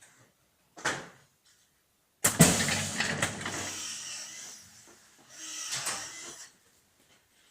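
Two-head PVC window welding machine working. A click comes about a second in, then a sudden loud mechanical clatter and rush of noise with a low hum that fades over about two seconds, and a second, shorter rush a few seconds later.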